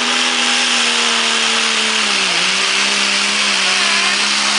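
Truck engine held at high revs under full load while pulling a weight sled, with a loud hiss of spinning tyres and exhaust. The revs dip briefly about halfway through and recover slightly lower.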